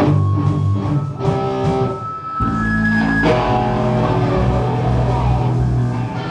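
Electric guitar played through an amplifier, ringing out held notes and chords, with bass guitar joining in with deep low notes about two and a half seconds in.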